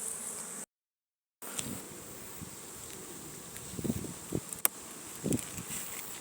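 Honeybees buzzing steadily around a busy, very active hive, with a few soft knocks and a click. The sound cuts out completely for a moment about a second in.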